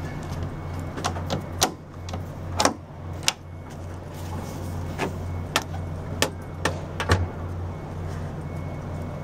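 Steady low mechanical hum with about ten sharp, irregular knocks and clicks over it, the loudest a little before the halfway point and again near the end.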